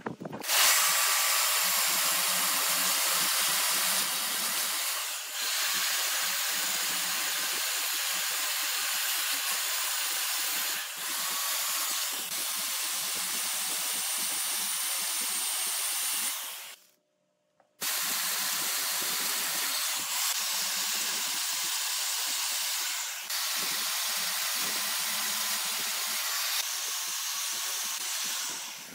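Steady hissing of a turning tool shaving wood spinning on a lathe, broken once by a brief silence a little past halfway.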